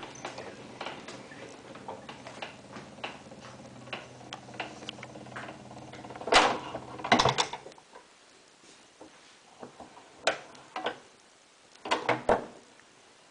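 Scattered clicks and knocks, with louder clusters of knocks, over a low steady hum that cuts off about eight seconds in.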